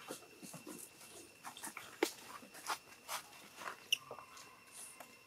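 Scattered soft clicks, taps and rustles from young macaques grooming and tussling on a rock, with a brief high squeak about four seconds in over a steady high-pitched drone.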